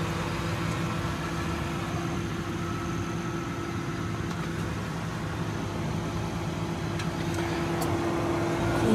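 A steady machine hum with a constant low drone and a steady mid-pitched tone.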